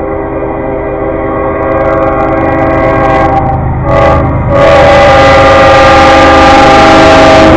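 Diesel locomotive's air horn sounding for a grade crossing as the train approaches: a long blast, a brief short one about four seconds in, then another long blast, louder, as the locomotive reaches the crossing.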